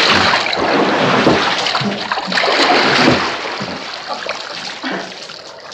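Water splashing and running in a bath during a struggle. It is loud at first and gradually dies down.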